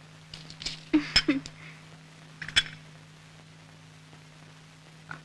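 A few sharp, light clicks and knocks, a cluster about a second in and a single one near the middle, over a steady low hum.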